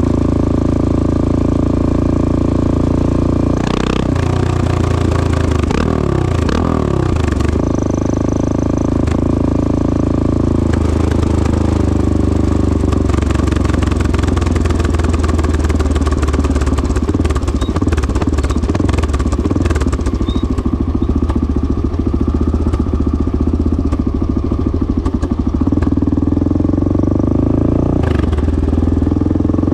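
1986 Honda XL600R's single-cylinder four-stroke engine running through a DEVIL stainless-steel exhaust. Its revs dip and pick up again about four to seven seconds in, and once more near the end.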